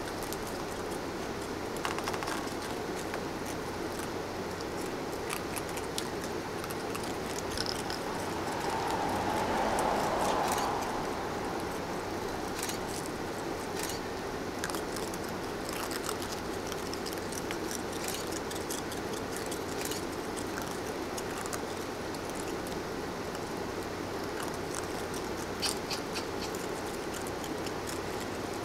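Faint, scattered clicks and scratches of baby raccoons foraging on gravelly ground, over a steady background hiss. A broad swell of noise rises and fades about ten seconds in.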